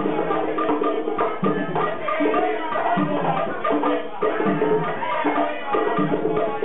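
Live Afro-Cuban rumba percussion: tumbadoras (conga drums) play a steady, repeating pattern of pitched open tones over a running pattern of sharp wooden clicks.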